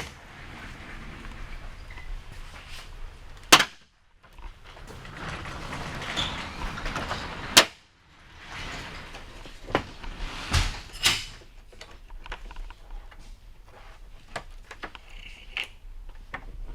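Clicks, knocks and snaps of hands and tools working on a police vehicle's interior fittings, with two loud sharp snaps about four seconds apart and lighter ticks between.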